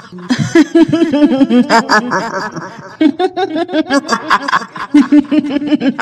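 Kuntilanak ghost laugh: a woman's high-pitched 'hihihi' cackle in quick repeated pulses, in two bursts with a short break about halfway.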